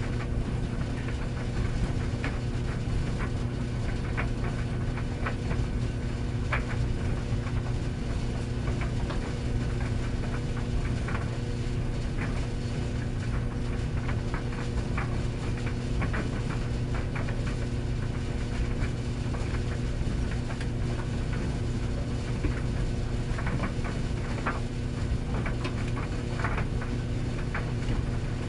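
Tumble dryer running: a steady motor hum with irregular light knocks and clicks of the load tumbling in the drum.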